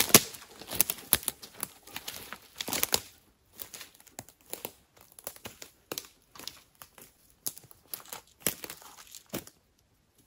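Dry forest-floor leaves and twigs crackling, rustling and snapping in irregular bursts, with a sharp snap at the start; it stops suddenly about a second before the end.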